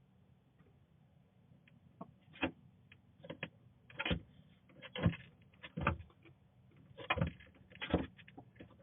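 A sleeping chicken snoring: short raspy snores, one about every second, growing louder from about two seconds in.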